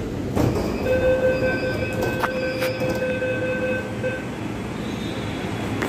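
Metro train car's electronic door warning buzzer sounding one steady tone for about three seconds, over the train's steady rumble. There is a thump just before it and two sharp clicks partway through.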